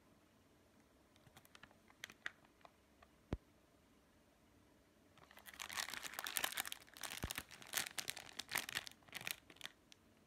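Clear plastic bread wrapper crinkling in the hands as the package is handled and turned over. A few light clicks and rustles come first, then about four seconds of dense crackling rustle from about five seconds in.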